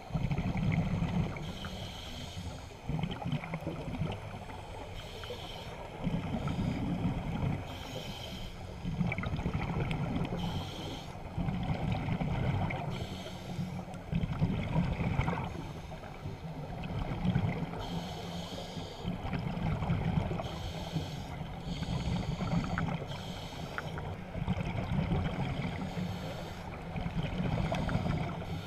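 Scuba diver breathing through a regulator underwater: a short hiss on each inhale alternating with a longer low rumble of exhaled bubbles, repeating every few seconds.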